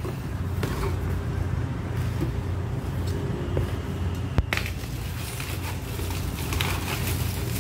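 Cardboard box opened by hand, with one sharp knock about four and a half seconds in, then honeycomb kraft packing paper rustling as it is pulled out, over a steady low hum.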